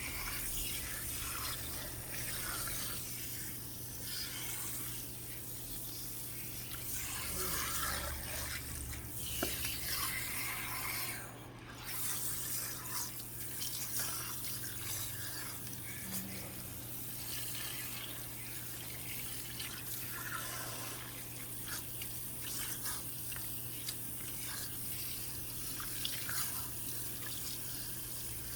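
Water running from a salon shampoo-bowl tap and splashing through hair, rinsing out a chemical relaxer. The flow is steady with small drips and splashes, and it cuts out for a moment about eleven seconds in.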